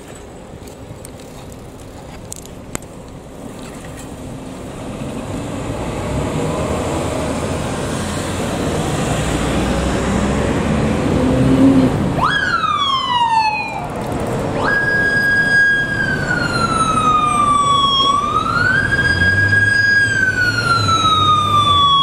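Road traffic noise builds up. About twelve seconds in, a Yamaha FJR1300P police motorcycle's electronic siren starts with a quick downward sweep, then settles into a wail of slow falls and quick rises in pitch, the start of an emergency run.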